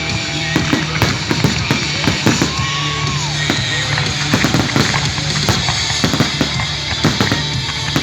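Fireworks going off in rapid bangs and crackles, mixed with music that has a drum beat.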